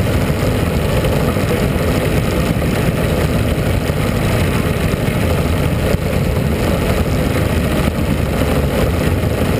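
Mini sprint race car engines idling steadily, picked up close by the car's on-board camera.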